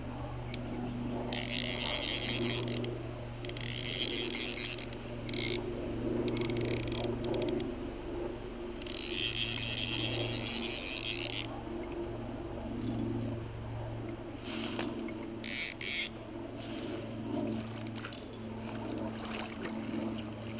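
Fly reel's click ratchet buzzing in several bursts of one to three seconds while a trout is played on the line.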